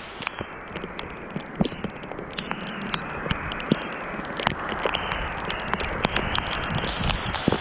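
Rain falling on a creek: a steady hiss with many irregular sharp ticks of raindrops striking close to the microphone.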